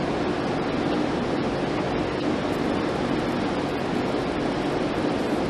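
Steady, even hiss of background noise with no knocks, voices or other distinct sounds.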